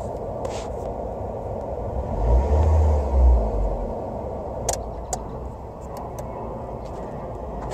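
Car engine idling, heard from inside the cabin as a steady low hum. A deeper rumble swells for about a second and a half roughly two seconds in, and a few faint clicks follow.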